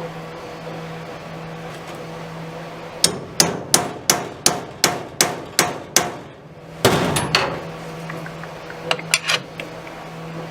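Hammer blows on a rusted wood lathe: a quick run of about nine strikes, roughly three a second, then a louder clattering burst and a few lighter taps near the end. A steady low hum runs underneath.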